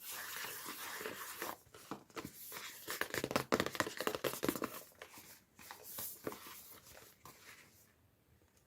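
Toy packaging being torn open and crinkled by hand: a hissing tear at first, then a dense run of crackles in the middle that tails off.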